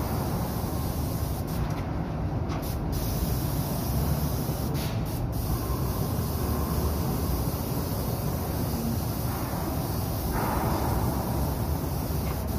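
Paint spray gun spraying steel work in a spray booth: a steady rush of spray over a constant low rumble, cutting out briefly a few times in the first half.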